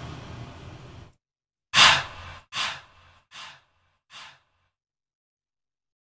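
Cinematic whoosh sound effect: an airy tail fades out about a second in, then a sharp whoosh at about two seconds repeats as three fading echoes, roughly one every three-quarters of a second.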